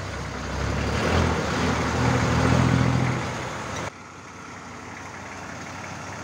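Toyota sugar-cane truck's engine running close by, a steady low engine note under a broad rushing noise. About four seconds in the sound cuts abruptly to a much quieter, steady low engine hum heard from further off.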